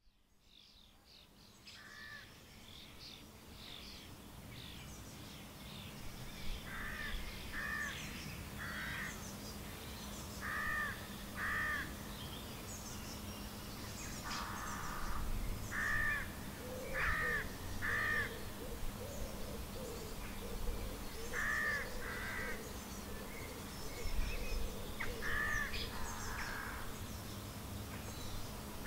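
Outdoor countryside ambience fading in, with a bird giving repeated calls in runs of two or three, fainter birdsong higher up, and a faint steady low hum.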